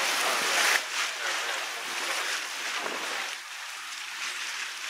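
Wind and water rushing past a moving passenger boat: a steady hiss of wash and spray, with wind buffeting the microphone.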